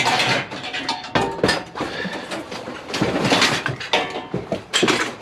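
Loose scrap steel clanking and clattering as pieces are handled and knocked together, with many sharp metallic knocks in irregular succession.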